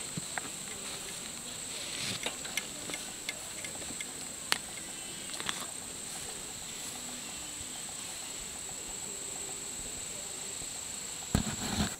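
Steady high-pitched insect chorus, with scattered clicks and rustles from a camouflage pack and its metal frame being handled in the first half, and a few louder knocks near the end.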